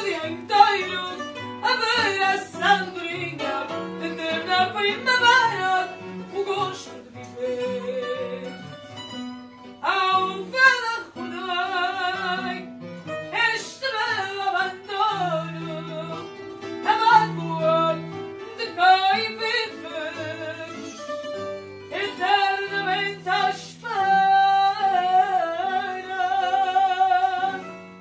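Fado singing: a voice holding long notes with a wide vibrato over plucked guitar accompaniment. The sound falls away near the end.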